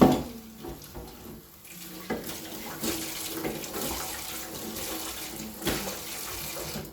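Tap water running into a sink, with a sharp knock at the start and a few light knocks of things handled in the sink.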